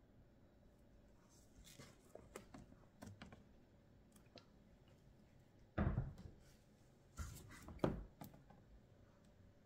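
Light clicks and knocks of things being handled, then three louder thumps in the second half, as of objects being set down on a hard surface.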